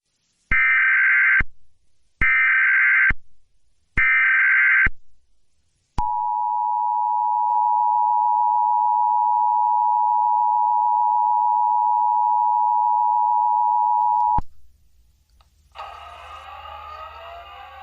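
Emergency Alert System start tones announcing a Child Abduction Emergency (Amber Alert): three short buzzy bursts of the SAME digital data header about a second apart, then the steady two-tone EAS attention signal for about eight seconds, which cuts off suddenly. Near the end a sustained, layered tone with gliding pitches begins.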